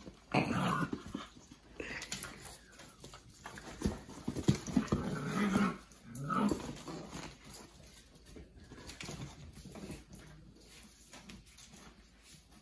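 Rhodesian Ridgeback puppies making small barks and growls as they play. The sounds come in irregular bursts, busiest in the first half and dying down after about six seconds.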